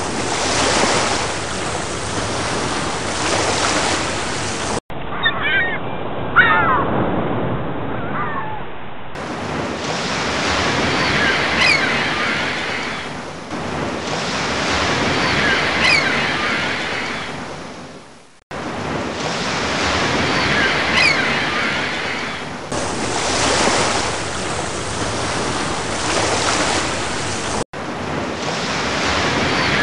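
Water noise heard through an underwater action camera's housing: a steady rushing hiss that swells and fades every few seconds, with faint short squeaky chirps, broken by several abrupt cuts between clips.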